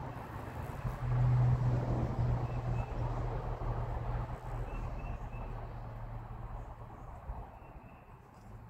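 A low engine hum, as of a vehicle passing, swells about a second in and slowly fades, with a few faint short chirps above it.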